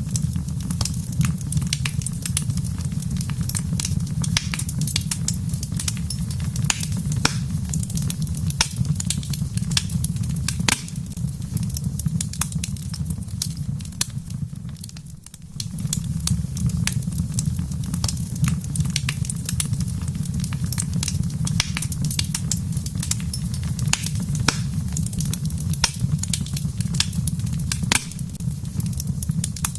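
Wood fire crackling, with frequent sharp pops and snaps over a steady low rumble. The sound drops away briefly about halfway through, then resumes.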